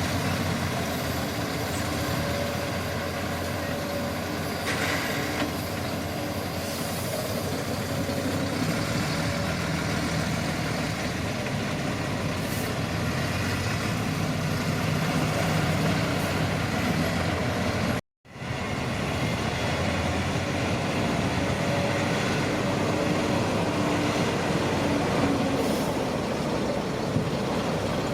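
Shantui crawler bulldozer running steadily at work, with a few short knocks over the engine noise. The sound cuts out completely for a moment about two-thirds of the way through, then resumes.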